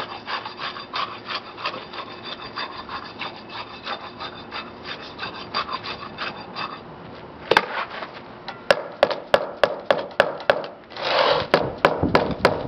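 A steel tamping rod being driven again and again into fresh concrete in the bowl of a concrete air meter, about three or four gritty strokes a second. About halfway through, the rodding stops and a mallet taps the side of the bowl in a quick series of sharp knocks, closing the voids the rod left.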